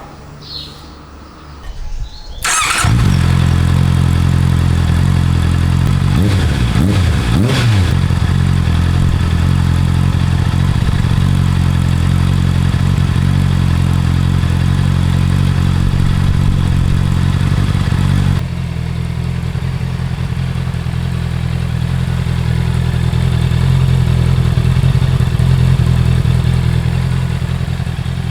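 Honda CBR650R inline-four motorcycle engine with a gutted exhaust, starting up about two seconds in and settling into a steady idle. It is blipped briefly twice shortly after, and the note drops a little in level about two-thirds of the way through.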